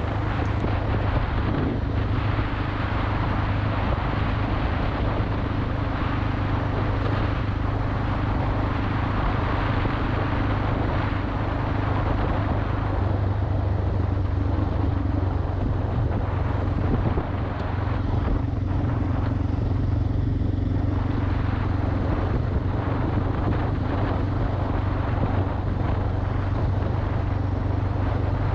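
Single-cylinder dual-sport motorcycle engine running at a steady cruising pitch under way, with a constant rush of wind and road noise over it.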